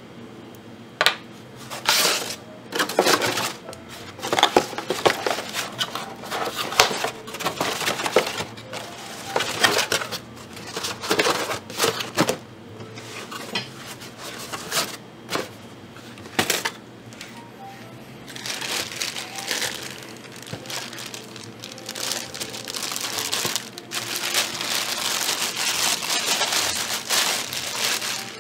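Unboxing noise: polystyrene foam packing inserts being pulled out of a cardboard box, rustling and knocking in irregular bursts. In the last third, a clear plastic bag wrapped around the microscope crinkles almost continuously as it is handled.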